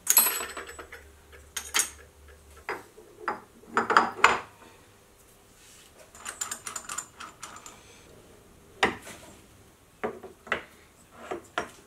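Steel vise jaw parts clinking and knocking against the milling machine table and the workpiece as they are fitted and bolted down, with a hex key rattling in a bolt head: a string of short, irregular metallic clicks and clunks.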